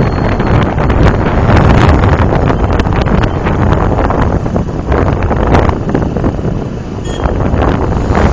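Wind buffeting the microphone of a moving motorbike, over the bike's engine and road noise; the wind eases briefly near the end.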